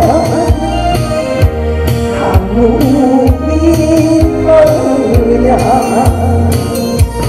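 A woman singing a trot song into a handheld microphone over a recorded backing track with a steady bass beat, amplified through stage speakers.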